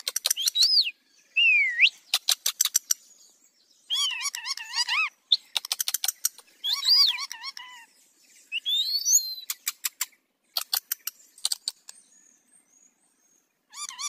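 Rose-ringed parakeets (Indian ringnecks) chattering to each other: quick runs of sharp clicks, rising and falling whistles, and wavering warbled calls, in bursts separated by short pauses.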